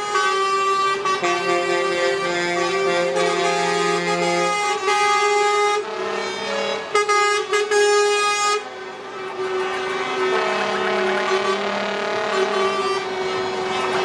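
Lorry air horns blaring from a convoy, several long blasts at different pitches overlapping and changing, with a brief drop about two thirds of the way through.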